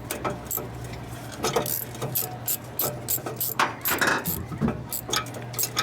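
Irregular metallic clicks and clinks of hand tools being handled, about two or three a second, over a steady low hum.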